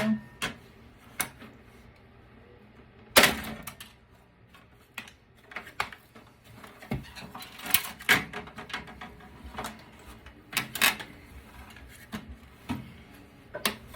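Clicks, knocks and clatter of a desktop computer case being handled and taken apart, with one loud bang about three seconds in.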